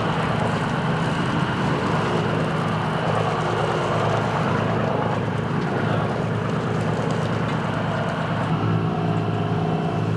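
Fishing boat's engine running steadily with a constant low hum under a broad hiss.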